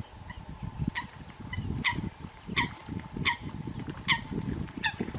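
Common moorhens fighting in shallow water: splashing in the water, with a short, sharp call repeated six times, each dropping in pitch, under it.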